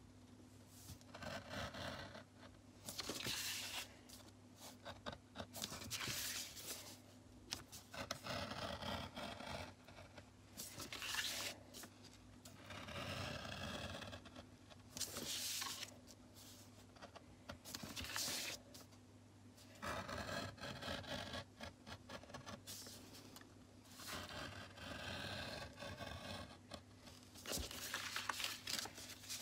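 Craft knife blade cutting through thick paper in a series of short scraping strokes, each about a second long, with brief pauses between them.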